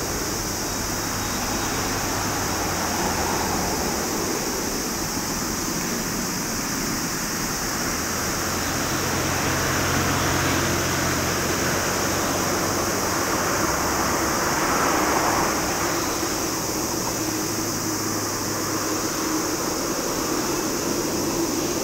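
Boeing 787-10 airliner's twin jet engines running at taxi power: a steady rushing noise with a low hum, swelling slightly about halfway through as the aircraft rolls past.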